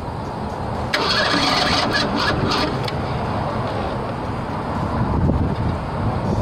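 Ford Bronco II's 2.9-litre V6 being cranked by the starter and struggling to catch without starting: spark plugs wet from the repeated attempts. A louder, hissing stretch sets in about a second in and lasts a couple of seconds.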